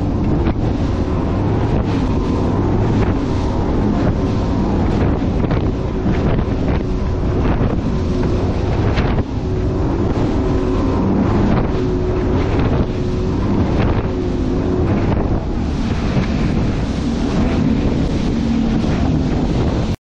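Strong wind buffeting the microphone while a bass boat's hull slaps repeatedly through choppy waves, with its 250 hp Mercury ProXS outboard running underneath.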